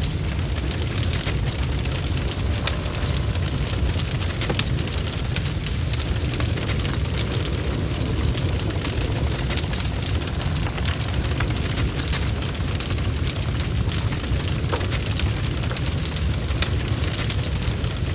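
Bonfire burning with a steady low rumble and frequent sharp crackles and pops of the burning wood.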